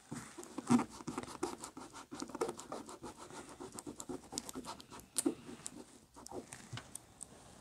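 Gloved fingers rubbing and pressing transfer paper down over a vinyl decal on a chrome badge: a steady run of scratchy rubbing with many small clicks and crinkles.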